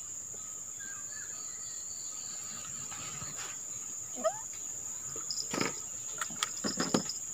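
Steady high-pitched drone of insects, with a short rising call about four seconds in. Near the end, a few light clicks and knocks as fishing rods in their holders are handled.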